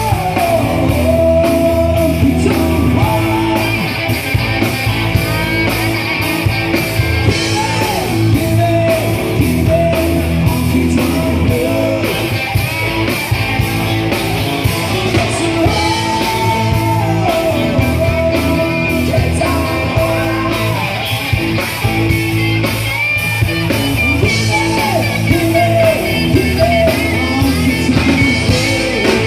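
Live rock band playing at full volume: distorted electric guitars, bass and a drum kit keeping a steady beat, with a male voice singing over them.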